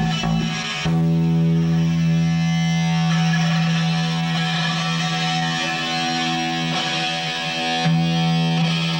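Distorted electric guitars ringing out long held chords through their amplifiers, a song intro without drums. The chord sets in about a second in and is struck again near the end.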